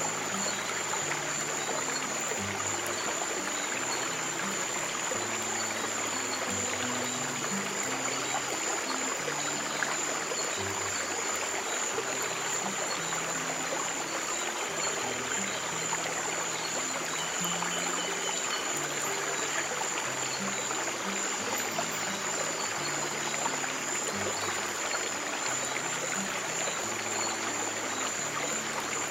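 Running water of a stream, a steady even rush, under soft, slow low piano notes. A faint steady high tone runs through it.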